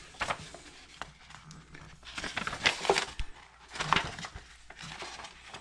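Rustling and crackling of a paper instruction booklet as its pages are handled and flipped, in a few short bursts.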